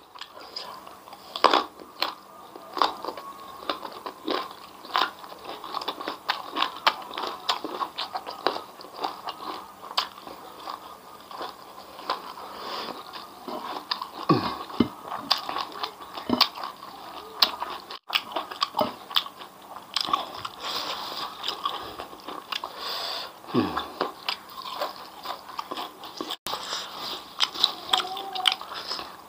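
Close-miked chewing and crunching: a mouthful of crispy fried grasshoppers with rice and raw vegetables being bitten and chewed, with many sharp, irregular crunches.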